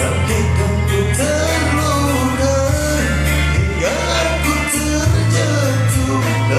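A song with a singer's voice over a band, steady bass and regular drum hits.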